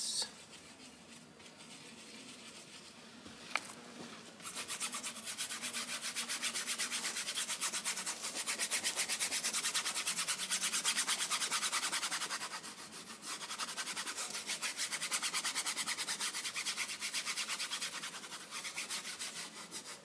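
A paintbrush scrubbing oil paint onto a stretched canvas in rapid back-and-forth strokes, starting about four seconds in and easing off briefly a little after the middle.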